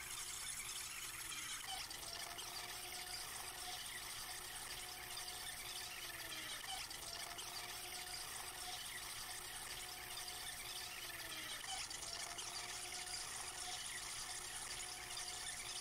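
Water and wind rushing past a Hewescraft 180 River Runner jet boat under way, an even hiss. Under it a faint hum holds steady, then dips in pitch about every four to five seconds.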